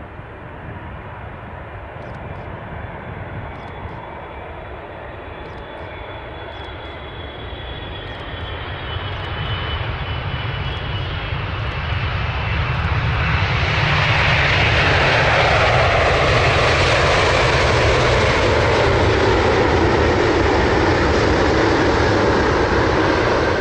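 Wide-body twin-engine jet airliner landing: the engines' whine, slowly falling in pitch, grows steadily louder as it comes in. About thirteen seconds in, just after touchdown, a loud, steady rush of engine noise builds and holds, typical of reverse thrust on the landing roll.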